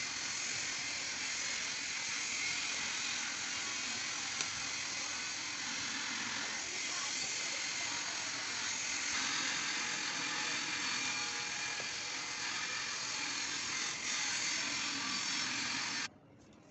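Steady mechanical whirring hiss that cuts off suddenly near the end.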